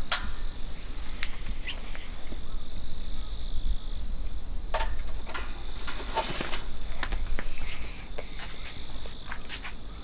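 Insects trilling steadily in a high, even tone, with scattered sharp clicks and light clatter as hands work the knob and parts of a round kerosene heater.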